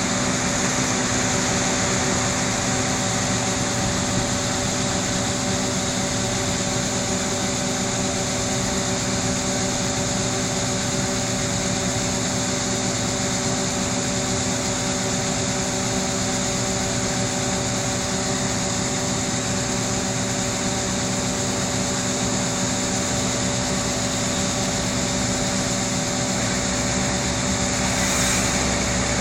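John Deere combine harvester running steadily while harvesting corn: an even mechanical hum and whir with several steady tones, with no change in speed.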